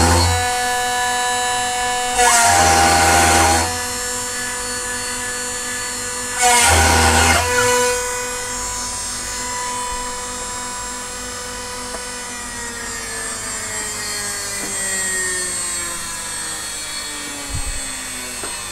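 CNC router spindle whining steadily at about 14,000 RPM, with loud bursts of cutting noise as a ripping cutter ploughs full depth through 18 mm plywood. One burst ends just after the start, and two more come at about two and six and a half seconds in, each lasting about a second and a half. From about twelve seconds in, the whine slowly falls in pitch as the spindle winds down.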